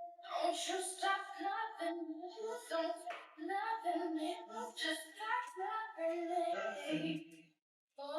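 A high voice singing a melody, with no instruments clearly heard. It cuts out for about half a second near the end.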